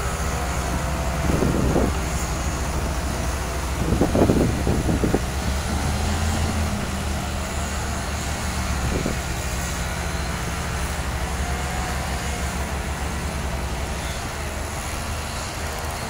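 Crawler crane's diesel engine running steadily while it holds a steel barge section over a lowboy trailer, with short louder bursts of noise about a second and a half in, around four to five seconds in, and near nine seconds.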